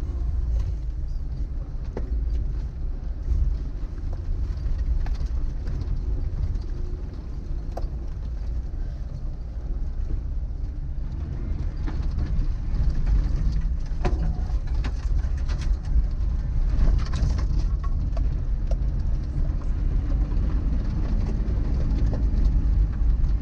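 Suzuki Vitara 1.6 EFI driving off-road: a steady low engine and drivetrain rumble with scattered knocks from the body and suspension over rough ground. It gets a little louder in the second half.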